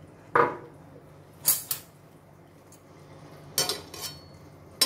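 A few sharp metal clinks and scrapes as a stainless steel plate used as a lid is gripped with tongs and lifted off a steel rice pot, the rice done steaming.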